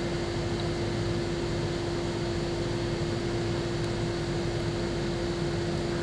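Steady background machine hum: one constant mid-pitched tone over an even hiss, unchanging throughout.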